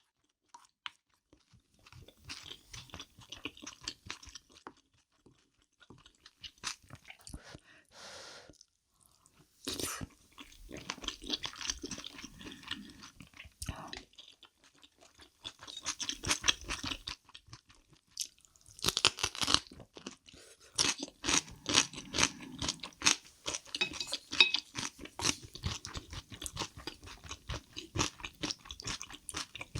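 Close-miked eating: crunchy food bitten and chewed in spells of crackling, with a few short quiet pauses between mouthfuls.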